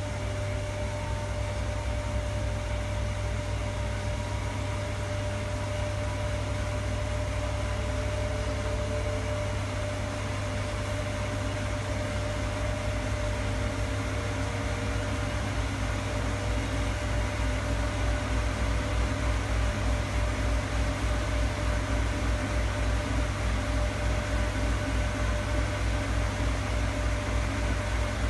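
Primus RS16 commercial washing machine running: a steady machine hum with a constant held tone and a low, rapid throb that grows a little louder from about halfway through.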